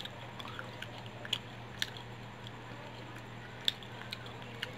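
A person chewing fried chicken with a thick flour coating, close to the microphone: sharp crunchy clicks every second or so, the loudest near the end, over a steady low hum.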